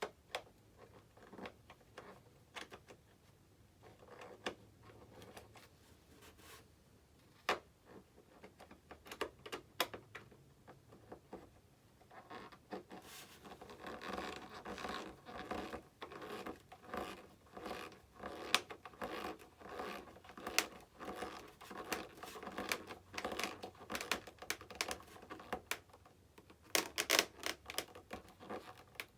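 Small hand screwdriver turning screws into the elevator hinges of a foam RC model jet: scattered clicks and scratching of the tool and plastic parts. They come sparsely at first and turn into a dense run of quick scraping clicks from about halfway, as the screws are driven home.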